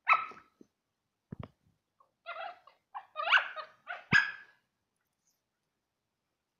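Two dogs play-fighting, giving short barks and growling yaps in four quick bursts that stop about four and a half seconds in, with a dull thump about a second and a half in.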